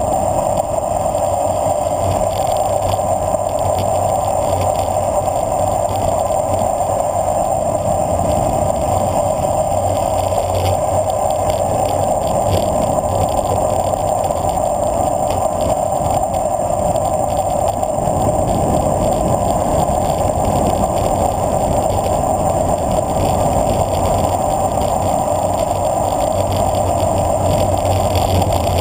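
Steady rush of wind and tyre noise from a road bicycle descending fast on asphalt, picked up by a handlebar-mounted camera.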